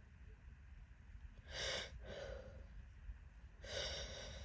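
A woman's two sharp, gasping breaths, about a second and a half and three and a half seconds in, as a sneeze builds up but does not come.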